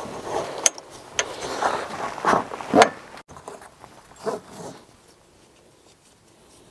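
Nylon strap webbing pulled through a buckle in several quick pulls, with a few sharp clicks, cinching down the strap that holds the boat frame to the inflatable tube. The loudest pulls come about two and a half seconds in, and the sounds stop about five seconds in.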